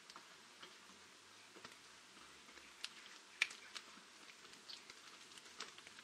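Faint, irregular patter of water drops dripping from wet branches and foliage: scattered light ticks, one louder tick about three and a half seconds in.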